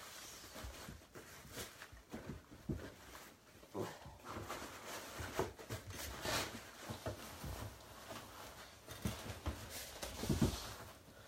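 Rustling fabric and light knocks as a sheet is spread and tucked into a mesh travel cot, with scattered small taps throughout and a few low thumps about ten seconds in.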